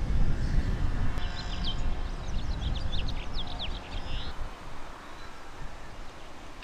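Birds chirping: a quick run of short, downward-sweeping chirps from about one to four seconds in, over a low rumble that eases toward the end.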